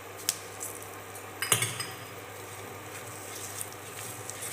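Cooking in a kadai: a couple of sharp clinks, the loudest about a second and a half in, then a silicone spatula stirring drumstick pieces in the pan, over a faint steady sizzle.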